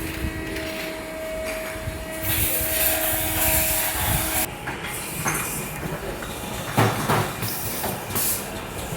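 Factory machinery at a door closer oiling station. A steady humming tone stops about four and a half seconds in, with hissing bursts before it stops and scattered metal knocks and clatter afterwards, the loudest knock near the middle.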